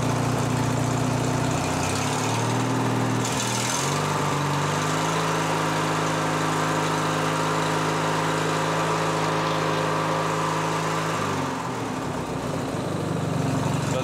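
Craftsman 19.5 hp riding mower's Briggs & Stratton engine running after its fuel system has been refilled. Its speed shifts: it drops about two seconds in, picks up to a steady higher speed around four seconds, and falls back about eleven seconds in.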